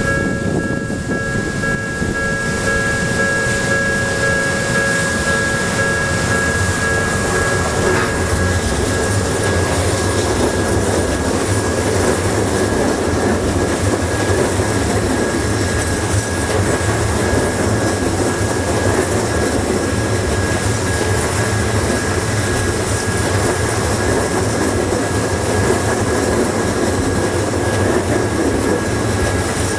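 Level-crossing warning bell ringing with steady high tones while an Odakyu Odawara Line train runs over the crossing, its wheels rumbling and clattering on the rails.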